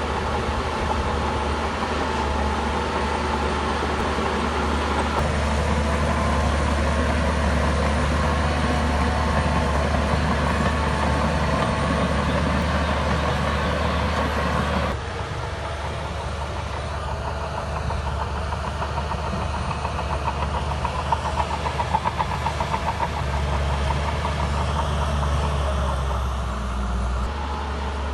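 Diesel engine of a Shantui crawler bulldozer running steadily while working, with metallic clanking from the tracks. The sound changes abruptly about halfway through, and a quick rattling clatter comes about three-quarters of the way in.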